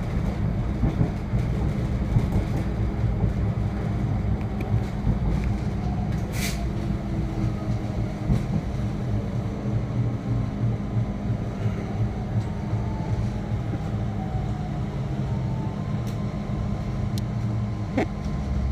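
Inside a moving diesel suburban railcar: a steady low rumble of engine and wheels on the rails. A sharp click comes about six seconds in, and a few more near the end.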